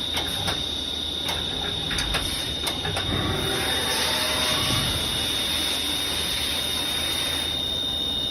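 1999 Leadwell SV500 CNC machine running under power: a steady high-pitched whine over a low hum, with a few sharp clicks in the first three seconds.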